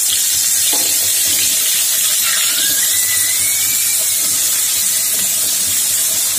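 Boiled chickpeas frying in hot mustard oil in an iron kadhai (wok) as more are tipped in: a loud, steady sizzle.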